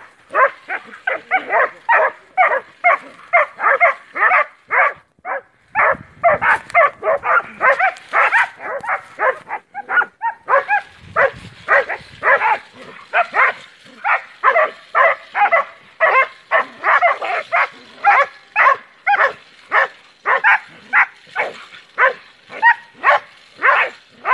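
Dogs barking rapidly and without let-up, about two to three barks a second, as they hold a porcupine at bay.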